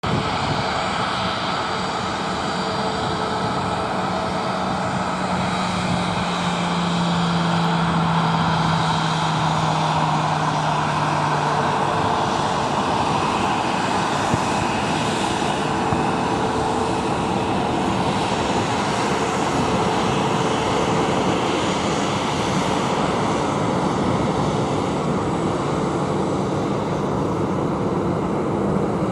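Boeing 747 freighter's four jet engines running steadily as the aircraft rolls along the ground, a continuous dense roar with a low hum that dips slightly in pitch partway through.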